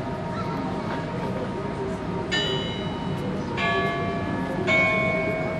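Bells struck one after another, three strikes about a second apart, each a different note that rings on with several overtones.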